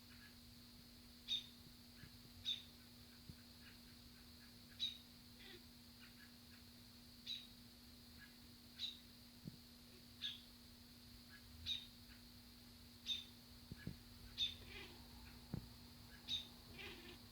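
A bird repeating a short, sharp high-pitched call about ten times, one every second or two, faint against a steady low hum.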